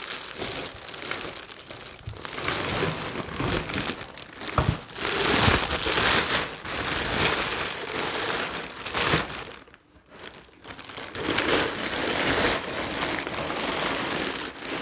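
Packaging crinkling and rustling continuously as it is handled and pulled away from a large boxed statue base, with a short break about two-thirds of the way through.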